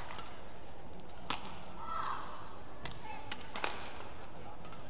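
Badminton rally: sharp cracks of rackets striking the shuttlecock, a hit every second or so, over the steady murmur of an indoor arena.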